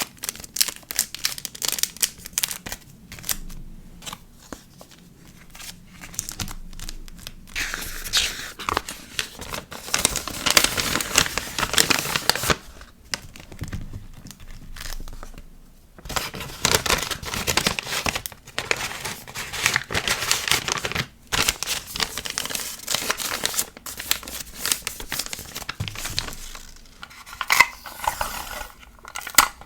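Packaging materials handled close to the microphone: plastic and paper crinkling and tearing, with scattered sharp clicks and taps. There are long stretches of dense rustling about a third of the way in and again past the middle.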